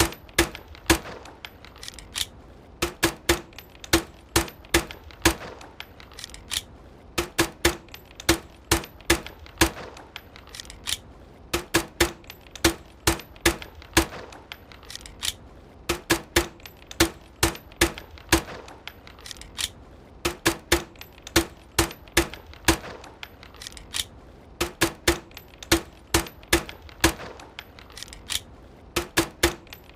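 Homemade silenced pistol firing suppressed shots: sharp metallic clicks in quick volleys of several shots, each volley about two to three seconds long and coming back about every four and a half seconds.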